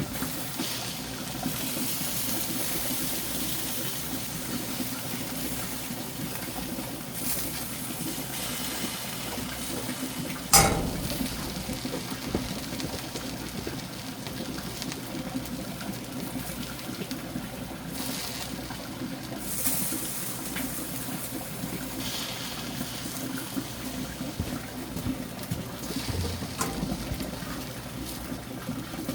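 Water flowing steadily, with a single sharp knock about ten seconds in.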